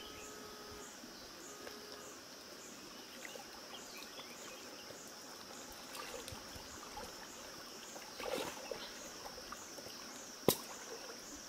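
An insect chirping in a steady pulsing rhythm, about two or three pulses a second, over the low rush of a shallow stream. A short burst of sloshing noise comes about eight seconds in, and a single sharp click about ten and a half seconds in.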